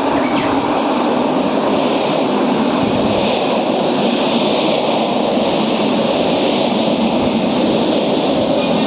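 Toei Oedo Line subway train running through its tunnel: a steady, unbroken noise of wheels on rail and rushing air, even in level throughout.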